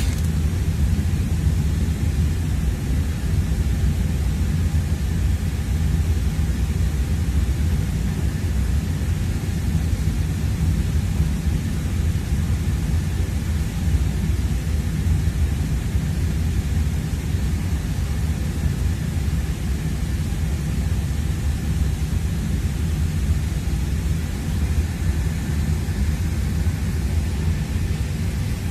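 Steady cabin noise inside a Boeing 747 airliner in flight: an even low rumble from the engines and airflow with a hiss over it, unchanging throughout.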